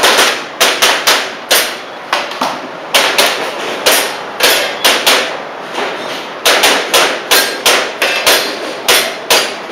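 Airsoft pistol fired in rapid strings during practical shooting practice: a run of about twenty sharp cracks, unevenly spaced, some close together.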